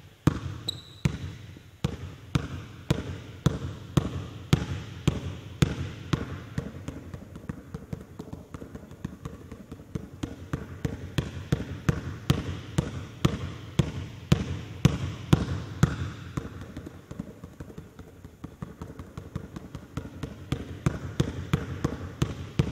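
Basketball dribbled on a hardwood gym floor: a steady run of bounces, a few a second, as the ball is switched from hand to hand.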